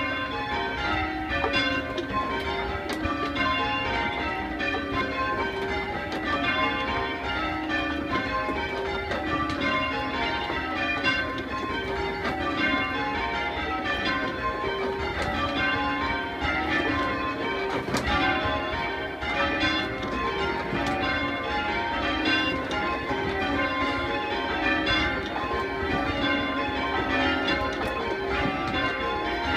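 A ring of full-circle church bells being rung down by their ropes, the bells striking one after another in a continuous, even round, heard from the ringing chamber below.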